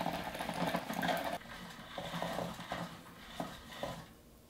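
Spinning fishing reel being cranked to wind line onto its spool: a busy whir that eases after about a second and a half into a few separate turns, stopping near the end.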